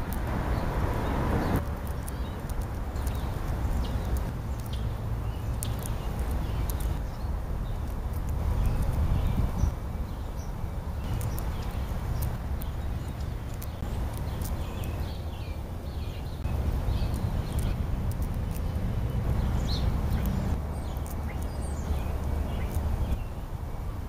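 Gray squirrel chewing food close to the microphone, a steady run of small clicks and crunches, over a low rumble of wind on the microphone. A few faint high chirps come through near the middle.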